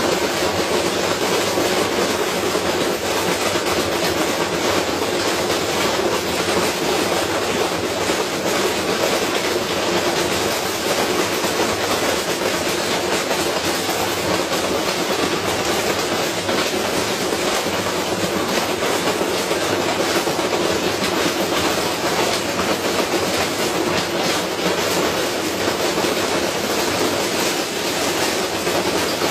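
Washing machine spinning hard with a heavy object in the drum, giving a continuous loud rattling and clattering as the unbalanced load shakes the machine apart.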